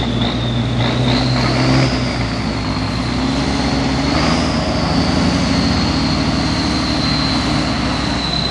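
Heavy brush truck's engine running under load as the truck drives, its pitch rising about a second in as it picks up speed, with a thin high whine riding over the engine.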